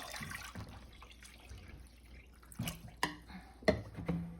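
Water poured and dripping into a crock pot around a jar set in for oil infusion, then a few sharp knocks, the loudest about three and a half seconds in.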